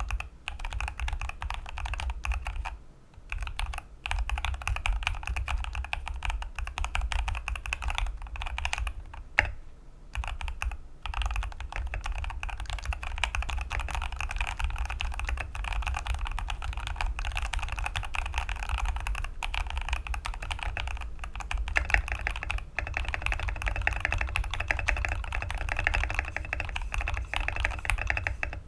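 Keychron V1 mechanical keyboard, left nearly stock, typed on quickly: a dense, continuous run of keystroke clacks with brief pauses about three and ten seconds in.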